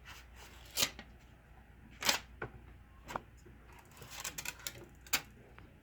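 Small sharp clicks and taps of a screwdriver and screws as a laptop's cooling fan is unscrewed and lifted out: single clicks spaced about a second apart, with a quick run of several clicks about four seconds in.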